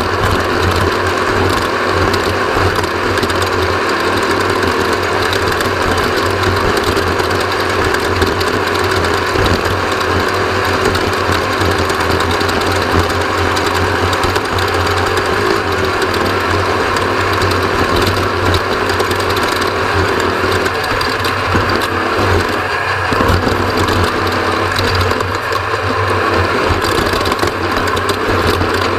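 Off-road race vehicle's engine running hard and steadily, with a fast mechanical clatter and rattle from the vehicle.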